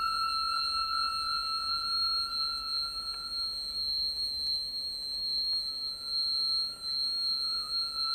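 Sustained high electronic tones from the performance's soundtrack, several steady pitches held together like a ringing drone. The lowest tone fades out about four seconds in and returns a second and a half later.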